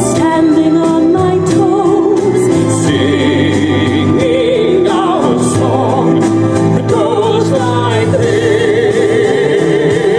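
A song playing: singing voices with a strong wavering vibrato over instrumental backing, loud and unbroken.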